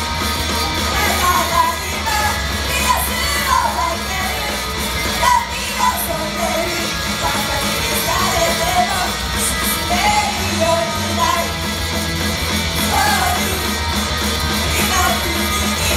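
Live idol-group song in a loud rock style: continuous singing over dense band music, with shouted yells mixed in.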